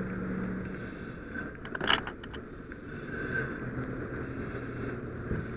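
A pickup truck burning, with one sharp pop about two seconds in and a few smaller ticks around it, over a steady engine hum.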